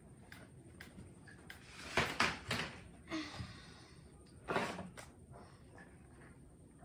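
Baby monkey sucking at a milk bottle: a few short breathy sucking and slurping noises about two seconds in, a soft hiss just after, and another sucking noise a little past four and a half seconds.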